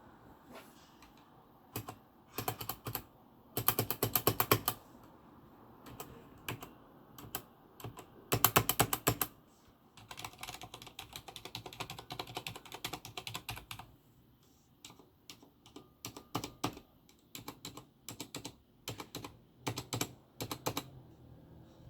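Typing on a mechanical keyboard: separate keystrokes throughout, with two short, fast, dense runs of key presses, one about four seconds in and one about eight seconds in.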